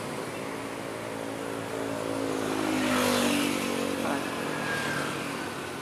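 Motor vehicle engines in slow traffic. One engine's pitch drops slowly, and a vehicle passes with a swell of noise that is loudest about three seconds in.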